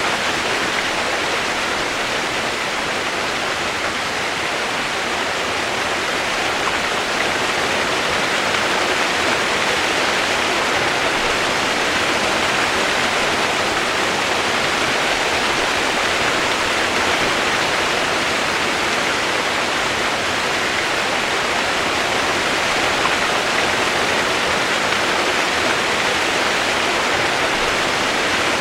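Steady, even rain noise used as white noise: a constant hiss with no separate drops standing out.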